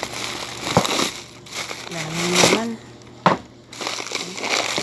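Thin plastic shopping bag rustling and crinkling as hands rummage through it, with sharp crackles about a second in and again past the three-second mark.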